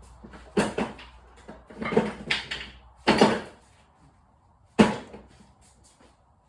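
Objects being handled and set down on a workbench: four loud clunks with scraping and rustling between them.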